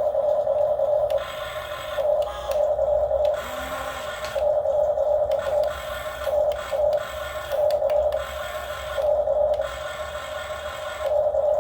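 Radio-controlled model excavator's electric motor whining at one steady pitch, getting louder and softer about every second as the controls are worked.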